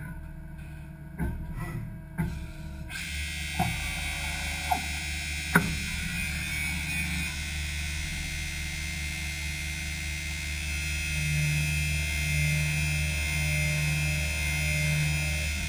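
Doosan Lynx 220 LY mill-turn CNC lathe machining an aluminium sprocket: the machine starts up about three seconds in with a steady hum and whine, with a few sharp clicks early on. Near the end a low tone comes and goes about once a second.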